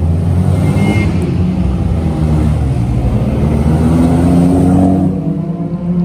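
Vintage car engine running loudly, rising in pitch as it accelerates from about three and a half seconds in, then dropping away near the end.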